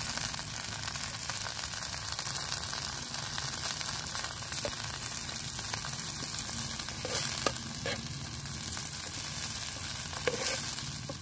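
Chopped onion, green chili and tomato frying in hot oil in a pan, a steady sizzle, with a metal spatula stirring and clicking against the pan a few times.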